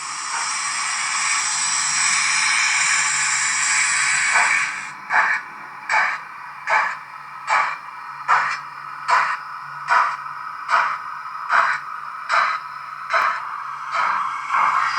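Sound decoder of a Roco BR 01 model steam locomotive playing through its small loudspeaker: a steady hiss of escaping steam for about five seconds, then slow, even steam chuffs about 0.8 s apart.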